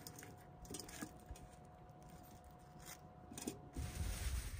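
Kitchen knife cutting an onion on a small cutting board: faint, scattered cuts and taps. A low rumble comes in near the end.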